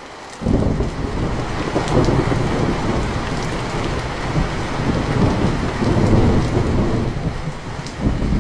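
Steady rain with a long roll of thunder that breaks in suddenly about half a second in and rumbles on, easing briefly near the end before swelling again.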